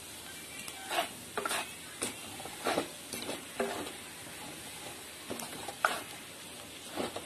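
Steel spoon scraping and stirring a thick mixture of fried onions and roasted gram flour (besan) in a kadhai, in a run of short, irregular strokes over a faint steady sizzle of frying.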